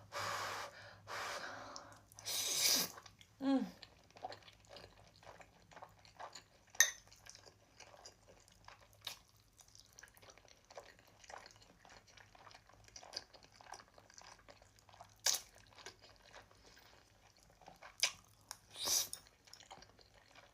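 Close-miked eating of instant noodles: short slurps and soft wet chewing, with many small mouth clicks, and a brief "mm" a few seconds in.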